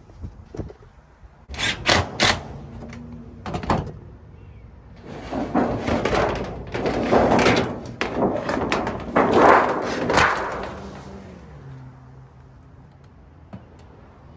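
Used corrugated tin roofing sheet being handled on a roof. A few sharp metal bangs come about two seconds in, then for several seconds the sheet rumbles and scrapes as it is shifted over the roof and laid down.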